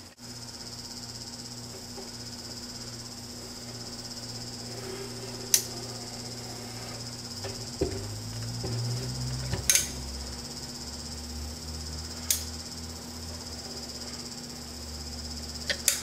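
A caulking gun being squeezed in short strokes, its trigger and plunger giving a handful of sharp clicks spaced a few seconds apart while a bead of silicone is pressed out. A steady high-pitched trill and a faint low hum run underneath.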